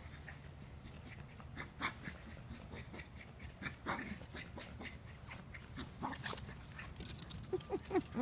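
Two small dogs playing chase, making scattered faint yips and whimpers, with a few quick pitched yips near the end.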